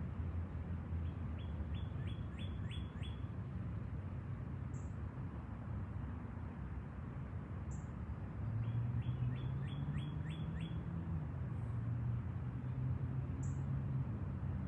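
A bird calling, with a quick run of six or seven short falling notes about a second in and again near the middle, and a few brief high peeps between. Under it runs a steady background hiss with a low hum.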